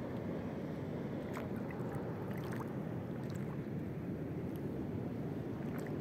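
Wind buffeting the microphone: a steady low rumble, with a few faint light ticks about a second and a half to three and a half seconds in.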